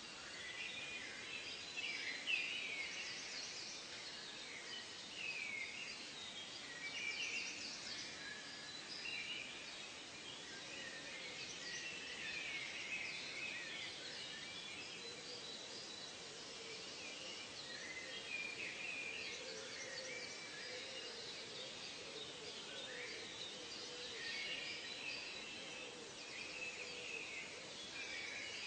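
A chorus of many birds chirping and singing at once: short, quick calls and sweeping notes overlapping without a break, over a faint background hiss of forest ambience.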